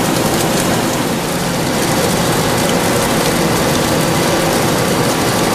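Matsuura CUBLEX-42 CNC mill-turn machine cutting a solid metal billet: a steady hiss of spraying coolant over the hum and whine of the spindle and cutter.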